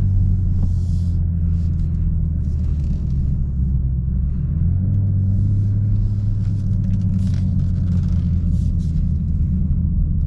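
BMW M240i xDrive's turbocharged inline-six running at a steady speed under way, a deep even drone that shifts slightly about halfway through, with patches of hiss coming and going over it.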